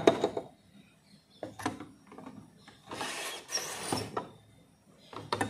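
Sharp plastic clicks and knocks, with a longer rustle of handling about three seconds in, as a loose plastic bulb holder holding a glass bulb and its wire is picked up and handled over a plastic switch board.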